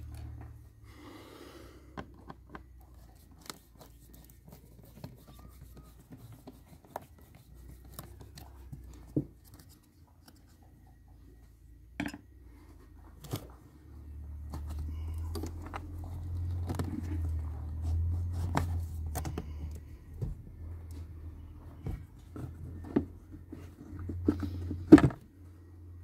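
Hands unfastening and lifting off the plastic air filter box lid on a 2.0 dCi van engine: scattered plastic clicks, knocks and scrapes, with a low rumble through the second half and a sharp clunk about a second before the end.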